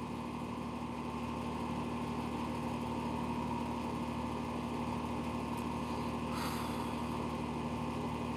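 Steady mechanical hum of a motor or engine running without change, with a brief soft hiss about six seconds in.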